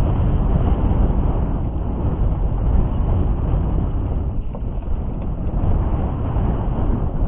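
Strong wind buffeting the microphone: a loud, unsteady low rumble with a rushing noise above it.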